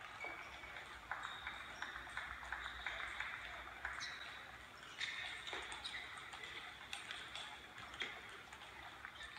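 Table tennis rally: the ball clicking off the bats and the table in a quick, uneven series of sharp ticks.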